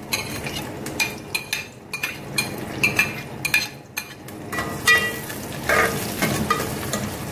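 Sliced onions sizzling in hot oil in a metal pot, while a steel ladle stirs them and clinks against the pot's sides again and again, some strikes ringing briefly.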